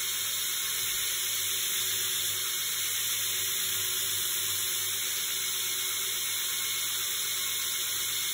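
Belt grinder running, its abrasive belt hissing steadily as a steel knife blade held in a grinding jig is ground against it, taking the bevel near the spine to a finish.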